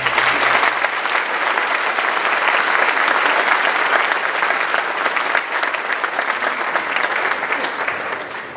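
Audience applauding, a dense steady clapping that fades near the end.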